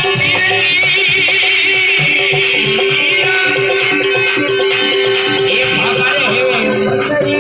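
Instrumental introduction of a Rajasthani folk bhajan: a melody over a long held note, with a steady percussion beat and a shaker-like rattle.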